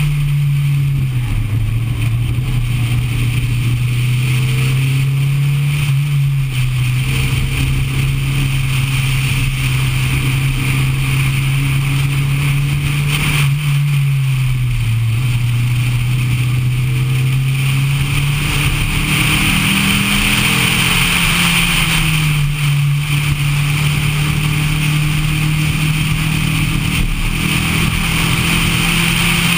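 Neon's four-cylinder engine at track speed, heard from on board: a mostly steady engine note that drops and rises again several times as the car lifts and accelerates through the corners, over steady wind and tyre hiss.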